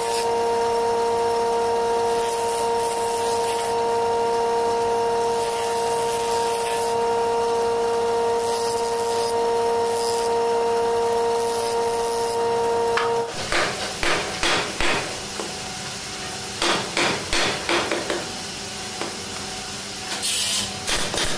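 Motor-driven sanding drum running with a steady hum, giving a gritty hiss each time a wooden block is pressed against it. It cuts off about two-thirds of the way in, followed by two quick runs of sharp wooden knocks.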